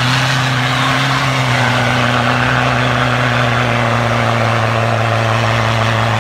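Toyota Hilux 3.0 turbo-diesel engine running hard at steady revs, its tyres spinning and churning through snow. The engine note holds one even pitch throughout.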